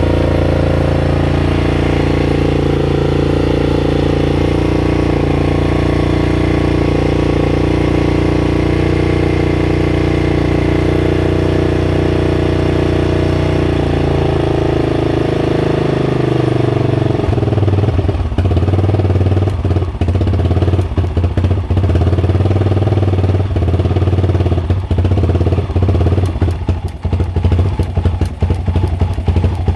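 Yamaha XT600E's air-cooled single-cylinder engine running on a bare frame. It holds a steady speed for about the first sixteen seconds, then the pitch drops and it settles into an uneven idle with separate firing beats.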